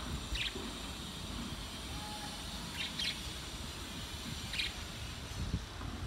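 Caged budgerigars giving short, high chirps, one about half a second in, two close together around three seconds, and one more near five seconds, over a steady low background rumble.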